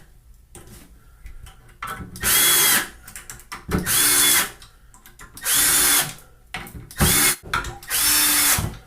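Milwaukee M12 hex cordless screwdriver (2401-20) driving one-inch drywall screws into wood one after another. The motor whirs in about five short bursts, each under a second long, with its pitch rising at the start of each.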